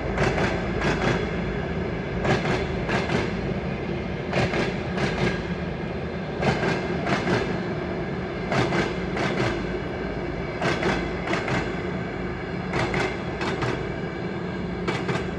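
A train hauled by a 2M62 diesel locomotive rolling past, its wheels clattering over rail joints in regular double knocks that come in groups about every two seconds, over a steady drone.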